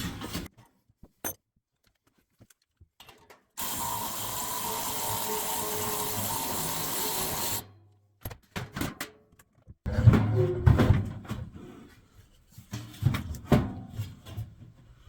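Cordless drill running steadily for about four seconds during a furnace blower motor swap, then irregular clanks and knocks of metal parts being handled.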